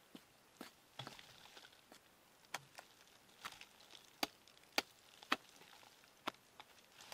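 A blade chopping into the trunk of a cashew tree: about a dozen sharp strikes at an irregular pace, the loudest in the second half, cutting away bark and borer-eaten wood to reach the worms inside.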